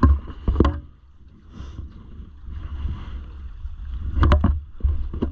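Wind rumbling on the microphone of a drag boat drifting with its engine silent, with sharp knocks and water slapping against the hull at the start and again about four seconds in.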